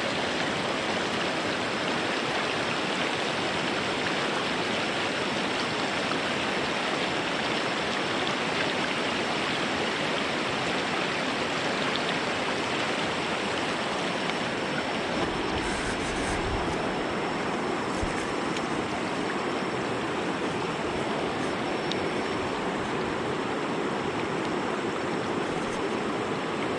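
Steady rushing of a flowing jungle stream.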